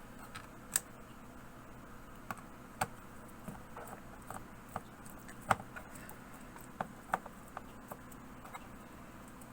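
Irregular small clicks and taps of a screwdriver and screws on a laptop's bottom case as the last screws are driven in, the loudest about halfway through.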